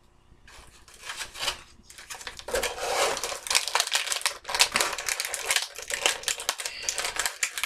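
Clear plastic action-figure packaging being handled and pulled at, crinkling and crackling in quick irregular clicks that start about a second in.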